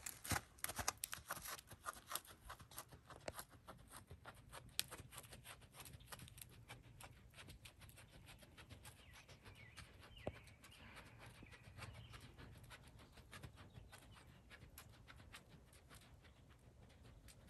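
Horse's hooves striking the sand arena footing, a steady run of soft, faint hoofbeats that grow quieter over the first few seconds.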